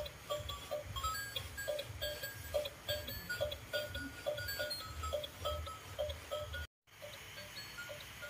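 Electronic musical toy turtle playing a tinny tune of short beeping notes, about three a second, over a low rumble. It cuts out briefly near the end, then carries on more faintly.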